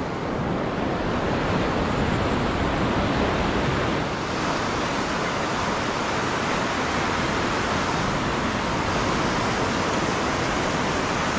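Ocean surf breaking and washing up the beach, a steady rush of noise, with wind on the microphone.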